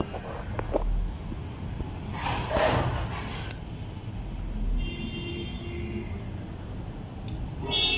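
Steady low background rumble, with a few light clicks of small brass valve parts being handled near the start and a brief rush of noise about two seconds in.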